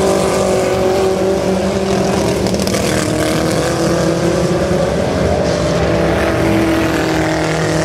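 Several Chevette dirt-track race cars running together at speed, their four-cylinder engines making overlapping engine notes that rise and fall slightly in pitch.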